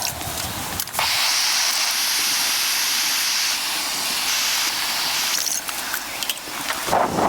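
A steady, even hiss, like steam or a spray, starts abruptly about a second in and cuts off a few seconds later; a duller rustling noise follows near the end.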